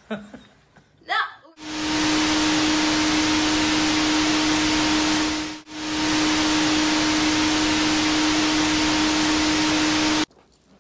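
Loud TV-static hiss with a steady low hum tone under it, a glitch sound effect. It starts about a second and a half in, breaks off for an instant in the middle, and cuts off suddenly near the end.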